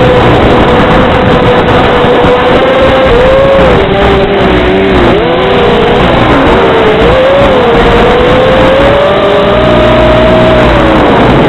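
Model airplane's motor and propeller heard from the onboard camera, a loud steady drone whose pitch wavers up and down as the throttle and airspeed change, climbing slowly later on and dropping near the end, over a dense rushing noise.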